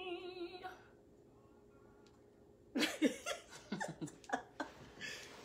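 Women laughing in short, choppy bursts for about two seconds, starting after a brief quiet pause, with the tail of a drawn-out, sung "hey" fading at the very start.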